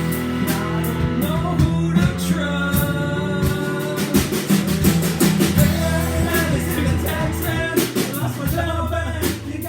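A small band jamming live: a voice singing over strummed guitar, a low bass line and a drum kit keeping a steady beat.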